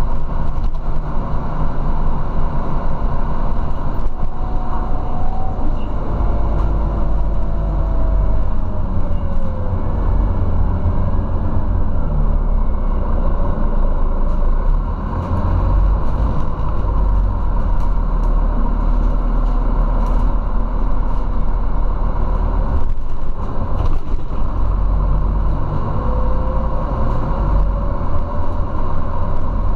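Interior ride noise of a Scania Citywide city bus with a ZF automatic gearbox driving along: steady low engine and road rumble. Faint whining tones glide up and down, and a whine rises near the end as the bus pulls away.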